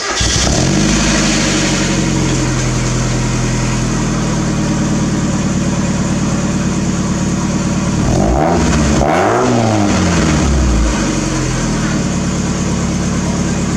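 Mazda Miata's four-cylinder engine heard at the tailpipes through a newly fitted Cobalt twin-tip exhaust: it catches right at the start, flares briefly, then idles steadily. A little past halfway it is given two quick throttle blips that rise and fall in pitch, then it settles back to idle.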